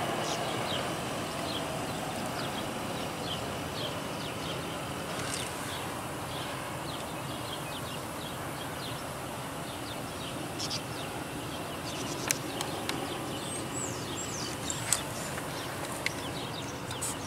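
Outdoor ambience: a steady rush of background noise with small birds chirping off and on, and a few sharp clicks in the last few seconds.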